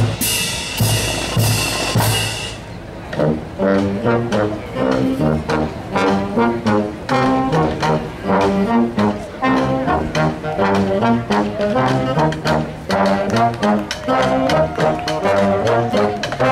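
Military marching band of brass and drums. For about the first three seconds it plays a drum cadence with cymbal crashes; then trumpets, trombones, baritones and sousaphones come in with a march tune over the drums.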